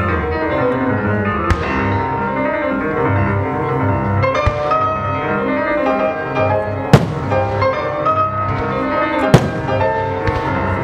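Classical music playing, cut by the sharp bangs of fireworks shells bursting, the loudest two about seven and nine seconds in.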